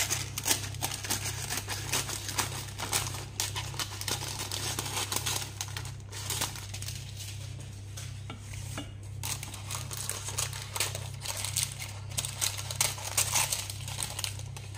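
Baking paper rustling and crinkling as it is handled and cut with scissors around the rim of a pie pan lined with pressed almond-flour crust, with light clinks and taps against the metal pan. A steady low hum runs underneath.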